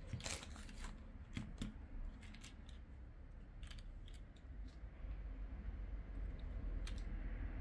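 Small clicks and taps of a plastic plug-in power adapter and its cable being handled and set down on a tabletop, a cluster of them in the first few seconds and only a few afterwards.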